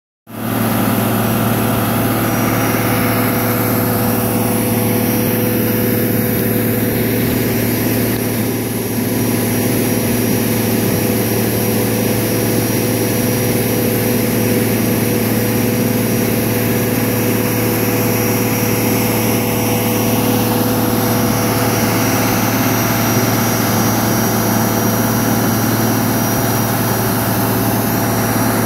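Aust-Mech 100-foot by 14-inch Tubeveyor grain conveyor and its Cross Sweep running steadily under load, retrieving grain at about 7 tonnes a minute: an even engine-and-machinery drone with a constant low hum and a broad hiss over it.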